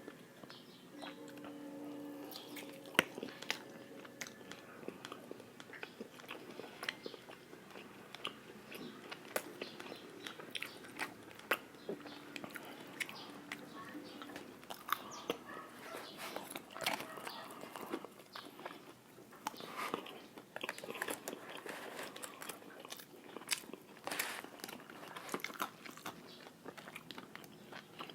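Close-up chewing and biting of crispy fried chicken breast (Jollibee Chickenjoy), with irregular crunches of the fried coating and wet chewing throughout.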